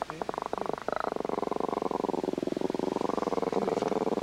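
Small wire-haired dog growling: a low, rattling growl that comes in short bursts at first and runs on without a break from about a second in. It is a warning growl at a hand reaching toward her.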